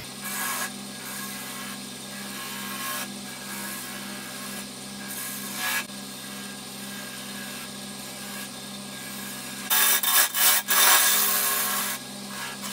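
Wood lathe running at low speed with a steady hum while a turning tool cuts a bead into spinning chokecherry, the cutting heard as short scraping passes. The loudest and roughest cutting comes near the end.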